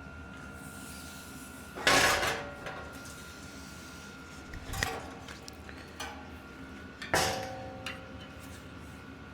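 Three sharp metallic clanks, the first about two seconds in and the last about seven seconds in, each ringing briefly as metal objects are knocked or set down during bike wheel work. A faint steady hum runs underneath.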